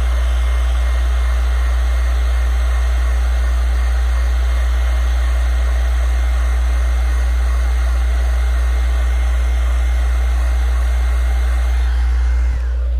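Electric heat gun blowing steadily, warming vinyl wrap film to soften it and work out a twist before it wrinkles; its motor whine drops away as it is switched off near the end. A steady low hum runs underneath.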